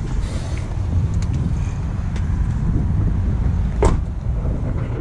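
Steady low rumble of wind buffeting the phone's microphone outdoors, with one brief sharp sound about four seconds in.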